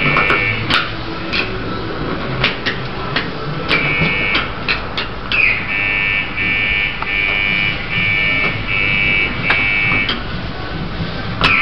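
High electronic beeping in a fast string of short pulses that stops for a few seconds at the start and again briefly near the end, with scattered clicks and knocks.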